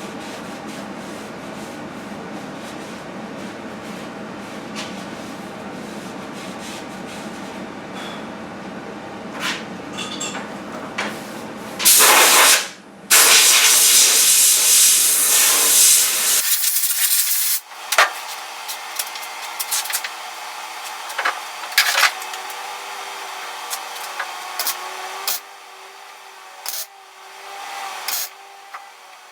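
Loud hissing that starts about twelve seconds in, breaks off briefly, then runs for about five seconds and stops, over a steadier machine hum with scattered sharp clicks.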